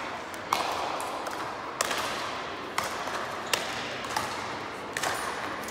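Speedball rackets hitting the tethered ball back and forth in a rally: about six sharp, ringing hits roughly a second apart, coming a little faster towards the middle, in a reverberant sports hall.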